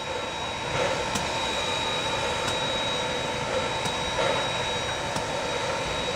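Pere Marquette 1225, a 2-8-4 Berkshire steam locomotive, standing under steam: a steady hiss with a few steady whining tones over it and faint ticks.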